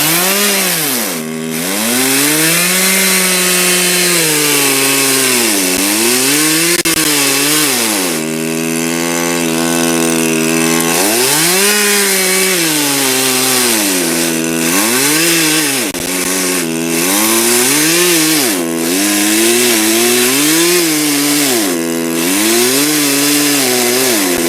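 Two-stroke chainsaw cutting through a log, its engine revving up and dropping back again and again, held at high revs for a few seconds in the middle.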